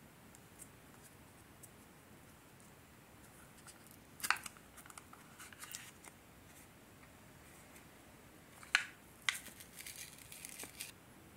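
Packaging of a Glico Panapp ice cream cup being opened by hand: a plastic overcap crackles and snaps as it is pulled off, then the inner seal lid peels away from the cup rim with a sharp crack and a run of crinkling crackles near the end.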